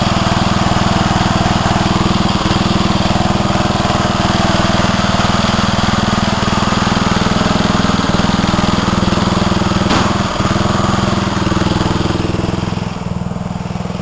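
Columbia riding lawnmower's 11 hp, 400 cc engine running steadily just after a cold start, its sticking choke held closed by hand. A single sharp tick comes about ten seconds in, and the engine gets somewhat quieter near the end.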